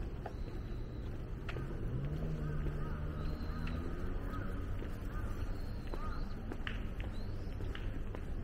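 Bird calls, of a kind the tagger files under crows, over a steady low rumble of city background. A low droning tone rises in pitch about two seconds in and holds for about two seconds.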